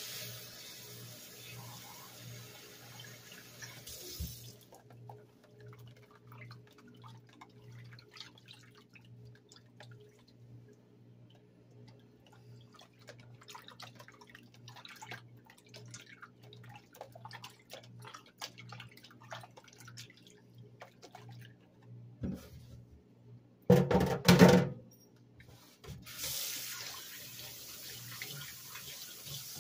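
Kitchen tap running into a stainless steel sink over pieces of raw deer heart in a plastic container, then shut off. Small splashes and clicks follow as the meat is worked by hand in the water, with a sudden loud noise about 24 seconds in. Then the tap runs again as hands are rinsed under it. A steady low hum sits underneath.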